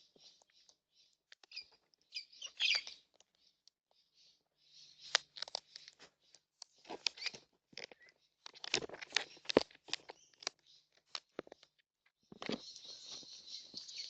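Birds feeding at a seed feeder: a run of sharp clicks and crunches as seed is pecked and cracked, busiest in the middle. A harsh, rasping hiss starts near the end.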